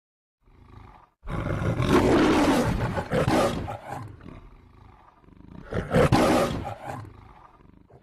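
Lion roaring, the Metro-Goldwyn-Mayer logo roar: a brief soft growl, then a long loud roar about a second in, and a second roar a few seconds later that dies away.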